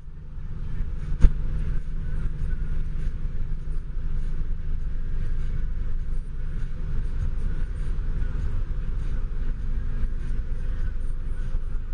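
Steady road and engine noise of a car on the move, heard from inside the cabin, with a single sharp knock about a second in.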